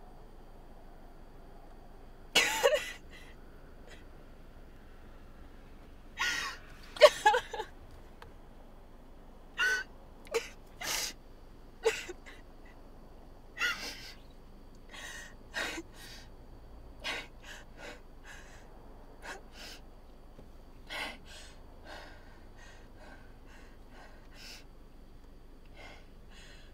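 A woman crying: irregular sobs and sharp gasping breaths, some with her voice breaking through. The loudest come in the first eight seconds, and they grow fainter and shorter after that.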